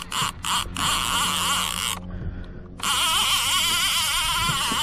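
Spinning fishing reel being cranked to bring in a hooked fish, the reel and line giving a wavering whine that pulses with each turn of the handle. It breaks off for about a second near the middle, then starts again.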